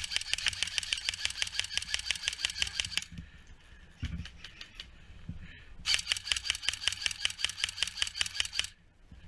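Airsoft electric gun firing on full auto: two long bursts of rapid, evenly spaced shots, each about three seconds, with a pause of nearly three seconds between.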